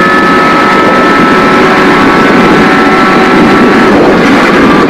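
Rally car at speed, heard from inside the cabin: a loud, steady high engine note over road and tyre noise. The note breaks off and changes about four seconds in.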